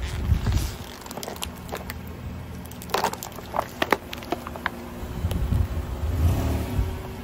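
Black plastic trays cracking and crackling as a car tyre rolls over and crushes them, with a few sharp snaps around three to four seconds in. The car rolls on with a low tyre rumble over the asphalt.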